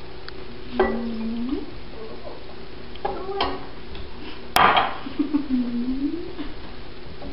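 Kitchen dishes clinking and knocking: cups and bowls against a stainless-steel mixer bowl as eggs and sugar are poured in. A sharp clack comes about halfway through.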